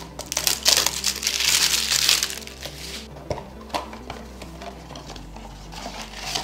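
A small cardboard blind box being handled and opened by hand: a loud rustling, scraping burst of packaging noise for about two seconds near the start, then a few lighter handling clicks. Quiet background music plays under it.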